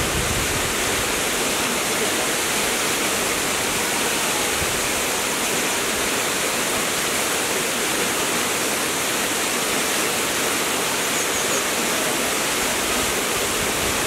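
A tall, thin waterfall plunging onto rocks, making a steady, even rush of falling and splashing water.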